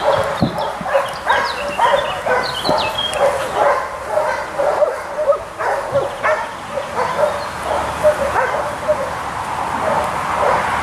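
A dog barking repeatedly, in short barks about two a second, excited by protection work against a padded decoy.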